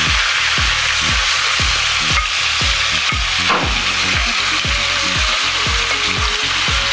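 Yogurt-marinated chicken sizzling as it goes into hot oil in a stainless steel pan, stirred with a wooden spatula. Background music with a steady beat of about two thumps a second underneath.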